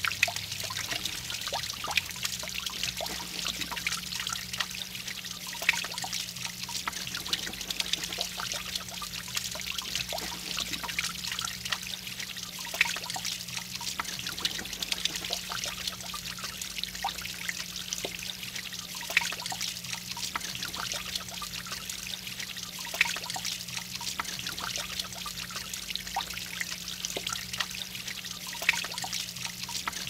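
Water from a small handmade rock waterfall trickling and splashing down a sculpted stone face into a shallow pool, a steady patter with many small irregular splashes. A faint low hum sits underneath.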